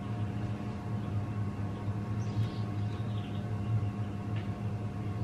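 A steady low mechanical hum, with a few faint, soft handling sounds as a hand reaches into a plastic pet carrier.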